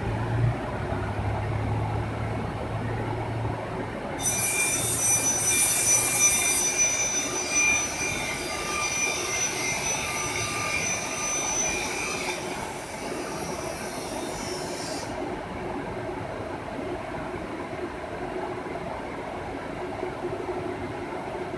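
5-axis CNC router cutting, running steadily. About four seconds in, a high-pitched screech with several steady tones sets in, loudest for the first few seconds. It cuts off suddenly after about eleven seconds, leaving the machine's steady running noise.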